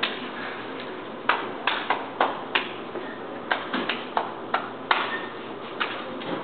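A dancer's sharp percussive hits, claps and stomps, about a dozen in irregular rhythm, with no music.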